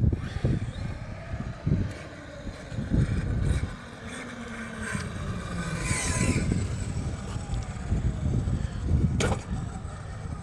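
Strong wind buffeting the microphone, with the Redcat Vigilante RC monster truck's electric motor briefly whining up and back down around the middle.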